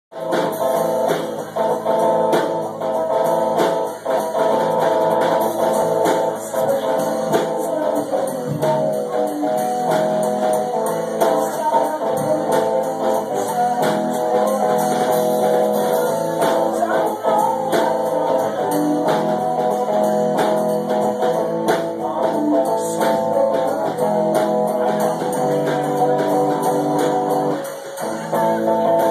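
Live rock band playing a song: electric guitar, drum kit and a singer. The music drops away briefly near the end.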